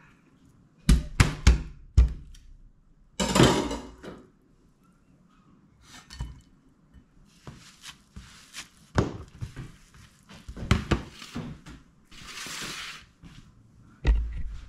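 Kitchen handling sounds: sharp knocks and thunks of a knife, wooden cutting board and dishes on a stone counter, with a few short stretches of sponge wiping. The heaviest thunk comes near the end.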